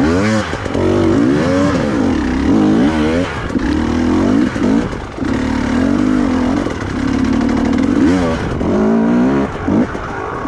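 Trail motorcycle engine revved hard over and over while climbing a slope of loose rock steps, its pitch rising and falling every second or so as the throttle is worked.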